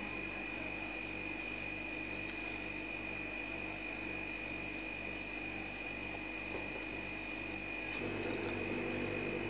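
Quiet room tone: a steady low hum with a thin, steady high-pitched whine. Near the end, a single light tap of a plastic spoon against a ceramic plate.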